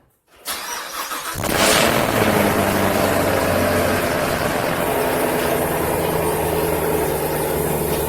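Chevrolet Camaro SS's 6.2-litre LT1 V8 starting: about a second and a half in, it catches with a loud flare, then settles into a steady, even idle.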